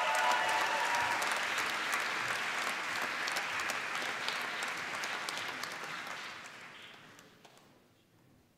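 Audience applauding, steady at first and then dying away over the last two seconds.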